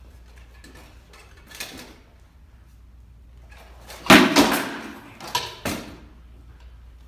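Sword blows striking shields and armour in armoured sparring. Four sharp knocks come in two quick pairs starting about four seconds in, and the first is the loudest.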